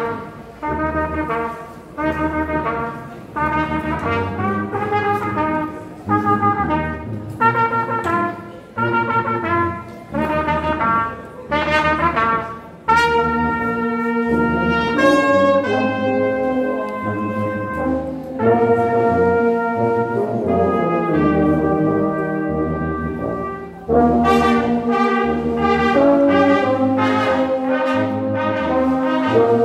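Brass band of trumpets and euphoniums playing a gospel medley: short, punched chords about once a second for the first dozen seconds, then longer held chords, coming in louder again about 24 seconds in.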